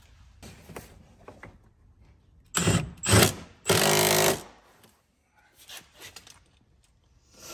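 Cordless Milwaukee M12 impact driver running the seat bolt down in three short bursts, the last one the longest, driving the bolt tight. A few faint clicks of the tool and parts being handled come before and after.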